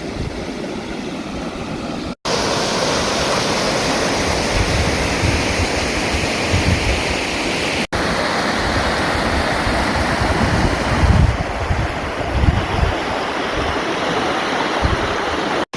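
Salt River rushing by, a fast, steady flow of snowmelt water, with some low gusts of wind on the microphone. The sound cuts out for an instant twice.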